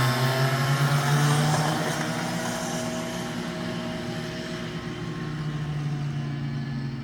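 Go-kart engine running with a steady drone, loud at first and fading over the first few seconds before holding at a lower level.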